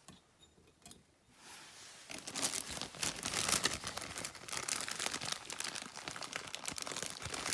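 Plastic zip-lock parts bag crinkling and rustling as it is handled: a dense run of small crackles that starts about a second and a half in and keeps going.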